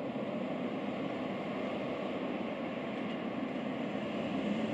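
Steady distant vehicle rumble, slowly growing louder.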